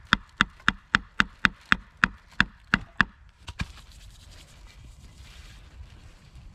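A knife blade chopping repeatedly into a thin wooden stick laid on a log stump: about a dozen sharp, ringing knocks, roughly three a second, which stop after about three and a half seconds.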